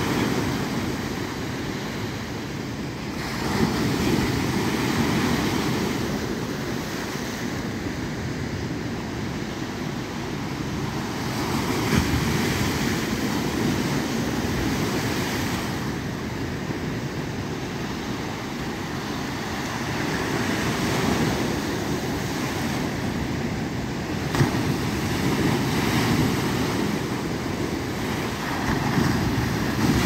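Sea waves breaking and washing over shoreline rocks, the surf swelling and easing every several seconds.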